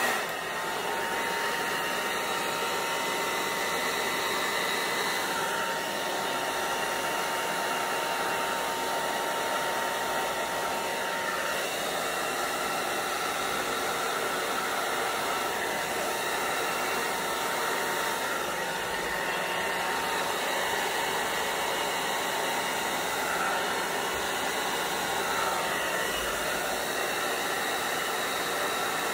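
Handheld hair dryer running steadily on its low-fan, cool-air setting, blowing close over wet acrylic paint, with a faint steady motor whine in the first third.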